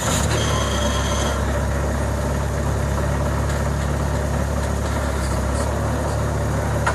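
Bobcat skid-steer loader engine catching just after start-up and then idling steadily, a deep, even running sound. A thin high steady beep sounds over the first second or so.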